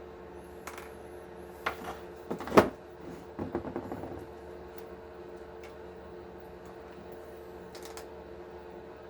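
Small plastic and metal RC axle parts clicking and clattering as they are handled on a workbench, a few sharp clicks and a short rattle in the first four seconds and another click near the end, over a steady low hum.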